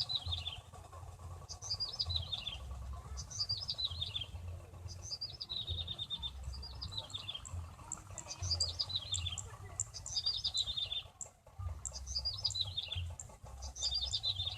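A small bird singing the same short phrase over and over, about once a second, each phrase a quick run of high notes falling in pitch. A low rumble sits underneath.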